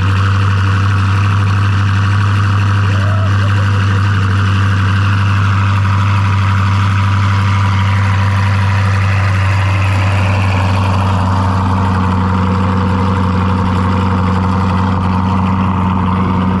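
Magnuson-supercharged 6.2-litre LT2 V8 of a Lingenfelter C8 Corvette idling steadily after a cold start, with a loud, even exhaust note and no revving.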